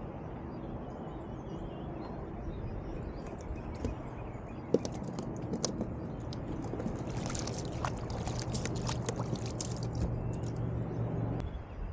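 Water sloshing and splashing around a small kayak. A faint low steady hum runs under it and stops near the end, and a flurry of small clicks and splashes comes in the second half.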